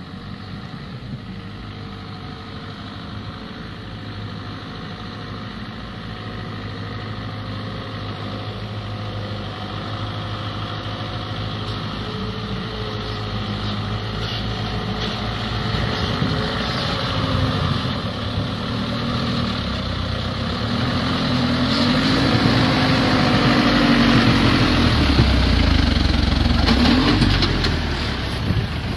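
Truck engine running and growing steadily louder, its pitch swinging up and down over the last several seconds as it revs.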